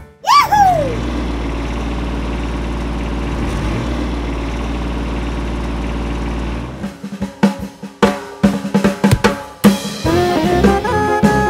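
Soundtrack effect: a quick whistle glide up and down, then a steady snare drum roll for about six seconds, followed by a scatter of drum hits. Jazzy music with pitched instruments comes back near the end.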